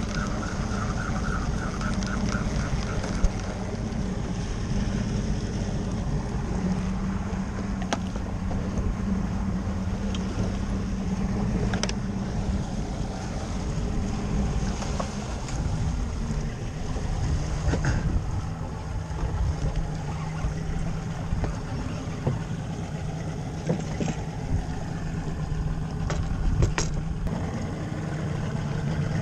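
Outboard motor running steadily, its note shifting slightly a couple of times, with a few short clicks over it.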